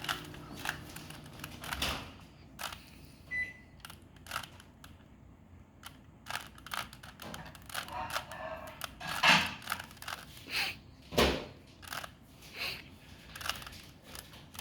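Rubik's cube being turned by hand: irregular plastic clicks and clacks of the layers rotating, about one or two a second, with a couple of louder clacks in the second half.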